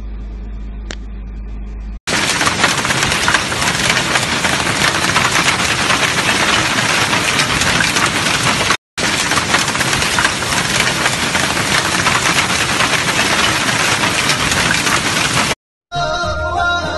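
Hail and heavy rain pelting the ground in a hailstorm: a loud, dense, even hiss of countless small impacts, cut off briefly about nine seconds in. For the first two seconds there is only a low steady vehicle engine hum, and music begins just before the end.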